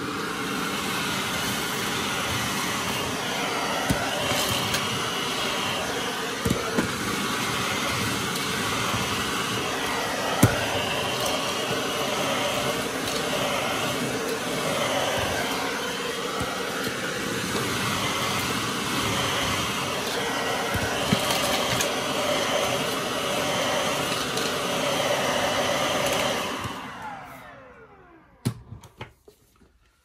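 Miele Triflex HX1 Pro cordless stick vacuum running steadily over a wooden floor, picking up crumbled cookie, with a few sharp ticks along the way. About 27 seconds in it is switched off and the motor winds down.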